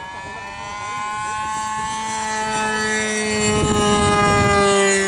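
OS 91 FX two-stroke glow engine of an RC model aerobatic plane running in flight. Its note climbs over the first second and grows steadily louder to a peak about four to five seconds in, then eases slightly lower in pitch near the end.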